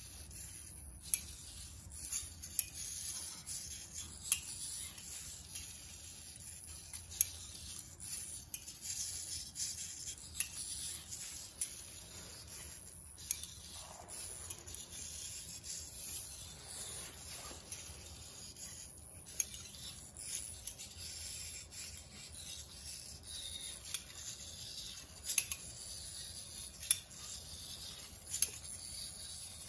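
Hobby servo motors of a small eight-servo biped robot whirring as it walks, with its foot plates scraping on a stone floor and sharp clicks now and then.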